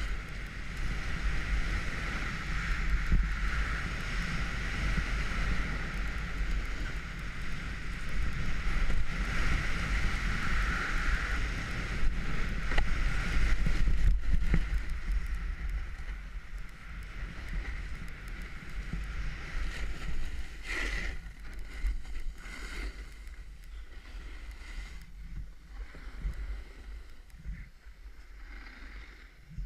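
Wind buffeting a GoPro camera's microphone while riding downhill, with snow hissing and scraping under the rider's edges. It grows quieter about halfway through, with a few sharper scrapes later on.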